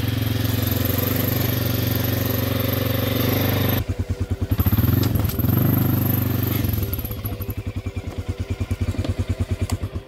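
Quad bike (ATV) engine running steadily, then dropping to a pulsing idle about four seconds in with a brief rev, and cut off near the end.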